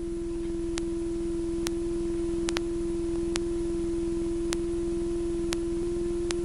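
A steady electrical tone and hum on a cockpit intercom audio feed, with a faint low rumble beneath and occasional sharp clicks.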